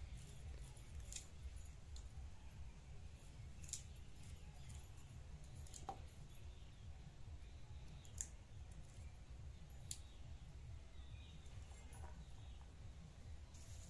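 Faint, sharp snicks and scrapes of blades at work: a small knife cutting crisp green onion-flower stalks and a curved boti blade scaling small fish, heard as about five separate clicks a couple of seconds apart over a low steady rumble.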